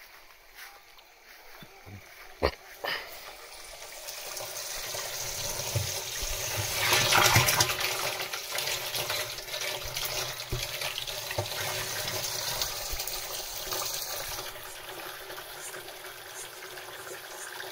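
Water pouring from a pipe into a plastic drum. The flow builds up over a few seconds and then runs steadily: the pump is delivering water again now that its motor starter is repaired. Two sharp knocks come a couple of seconds in.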